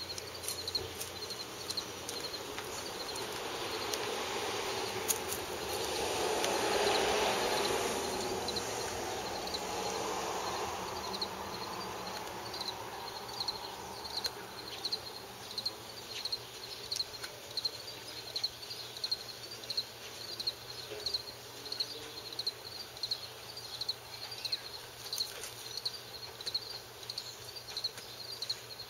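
Crickets chirping steadily, about two high chirps a second. In the middle a broad rushing noise swells and fades over several seconds.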